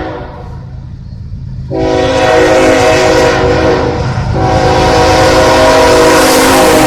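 BNSF Dash 8 locomotive's Nathan K5HL five-chime air horn blowing a loud chord for a grade crossing. It cuts off about a third of a second in, sounds again about two seconds in, breaks briefly near the middle and is then held, over the rumble of the approaching train, which grows louder.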